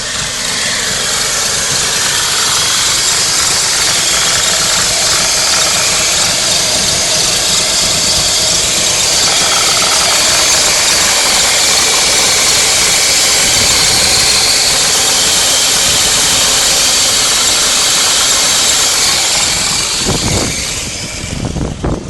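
Loud, steady hissing squeal over the idling BMW M43 four-cylinder engine, the sound the owner suspects is a vacuum leak. It stops about twenty seconds in, leaving the plain idle.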